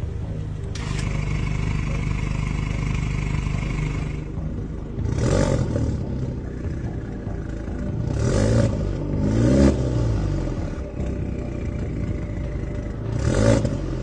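Alfa Romeo Giulia 2.0T's turbocharged four-cylinder engine idling through a catless 3-inch valved performance exhaust. The throttle is blipped four times, about five, eight and a half, nine and a half and thirteen and a half seconds in, each a quick rise and fall in revs.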